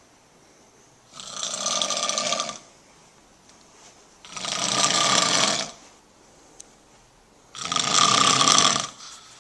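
A sleeping person snoring: three long snores, each lasting over a second, coming about every three seconds with quiet in between.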